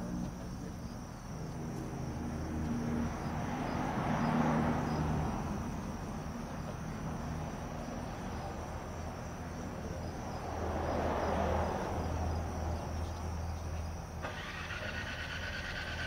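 Two vehicles pass by, each a broad swell of road noise that rises and fades, one about four seconds in and the other about eleven seconds in, over a steady low hum. Insects start chirping near the end.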